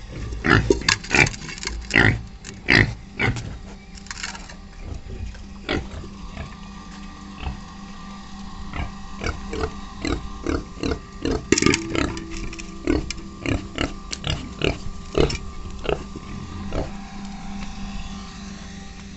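Pigs grunting and eating at their feed, a run of short sharp sounds, loudest in the first three seconds and again about twelve seconds in.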